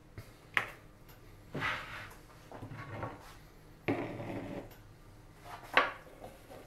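Wooden cutting board and kitchen knife handled on a worktop. A sharp knock comes about half a second in, then several short scraping and sliding sounds, and a sharper knock near the end, as sliced onion is scraped off the board with the knife into a plastic bowl.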